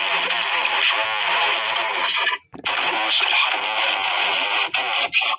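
Loud, harsh radio-style static with a garbled voice buried in it, broken by a brief dropout about two and a half seconds in.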